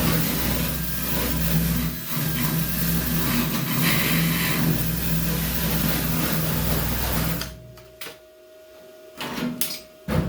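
A handheld electric power tool runs steadily on the truck's sheet metal with a high motor hum and a hiss, then is switched off about seven and a half seconds in. A few light knocks follow near the end.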